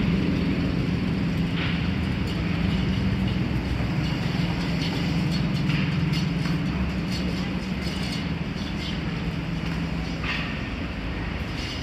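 Street traffic: a steady low hum of vehicle engines with general city noise, easing off slightly near the end.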